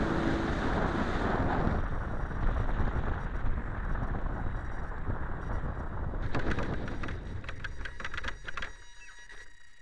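Airflow rushing over the onboard camera of a fibreglass model sailplane as it glides in to land. From about six seconds in, a run of rapid scraping and rustling follows as the fuselage touches down and slides through grass, dying down near the end.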